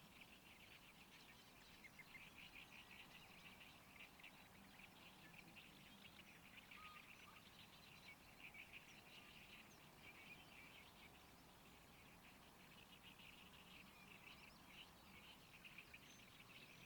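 Faint, continuous chatter of birds, a dense run of rapid chirping notes with no pause, over a faint low hum.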